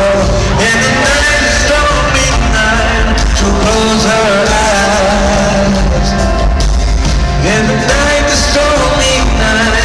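Pop band playing live through a venue's sound system, a singer's melody over drums and band, loud and dense as picked up by a phone's microphone.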